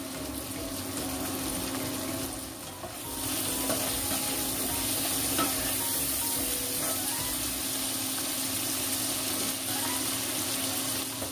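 Sliced tomatoes, shallots, garlic and chillies sizzling in hot oil in a wok while a spatula stirs them. The sizzle grows louder about three seconds in.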